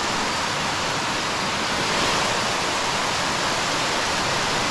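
Water pouring over and down the face of a low concrete spillway dam right beside the microphone: a steady, loud rush.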